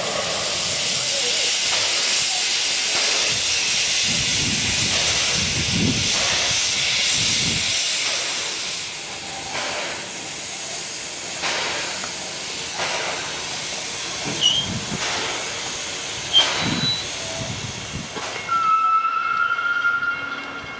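Small steam railmotor hissing steam, with slow exhaust puffs about every second and a half, and a brief high-pitched tone near the end.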